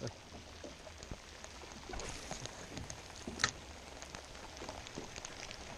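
Light rain pattering on the water and boat, with scattered small ticks and one sharp click about three and a half seconds in.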